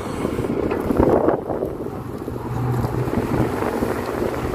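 KATO HD512 hydraulic excavator's diesel engine running steadily as the machine works, with wind buffeting the microphone.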